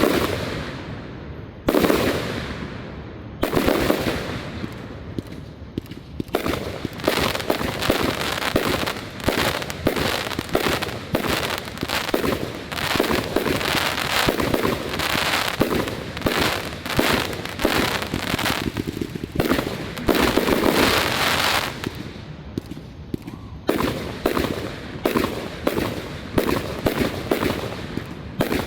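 Fireworks display: a few single aerial shell bursts, then a long run of dense, rapid crackling and popping with a brief lull, and more bursts near the end.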